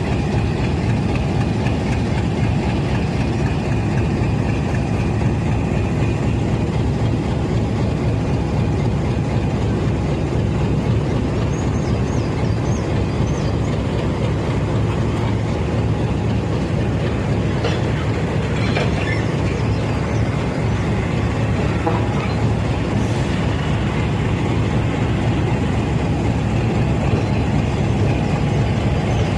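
Diesel engine of a GE U20C diesel-electric locomotive running at a steady speed, a deep even hum with no revving.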